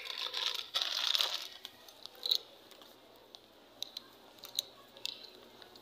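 Crinkling rustle for about the first second and a half, then a few scattered short clicks.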